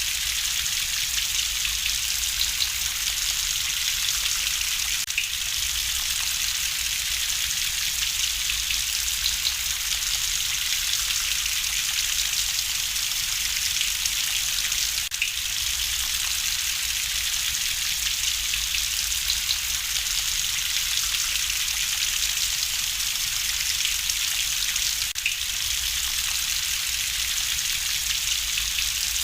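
Steady rain ambience: a constant, even hiss with a low rumble beneath, mixed with the light crackle of a wood fire. Faint brief dips in the hiss come about every ten seconds.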